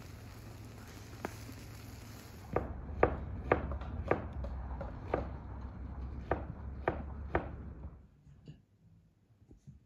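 Kebabs sizzling over a charcoal grill with a steady hiss and light crackles, then a knife chopping on a board, about nine sharp strokes at roughly two a second.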